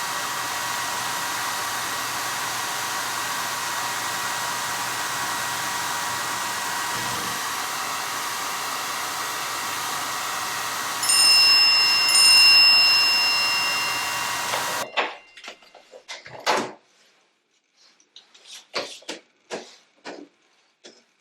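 Hand-held hair dryer running steadily. About eleven seconds in, a phone's text-message alert chimes twice over it. A few seconds later the dryer cuts off suddenly, followed by a few light clicks and taps of handling.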